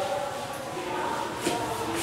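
A duster rubbing across a whiteboard as it is wiped clean, under a voice, with one short knock about one and a half seconds in.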